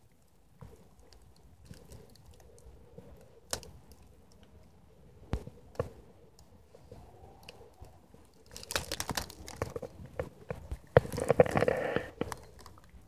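Dry fallen leaves crunching and crackling: a few scattered snaps, then denser, louder crunching in the last third, loudest near the end.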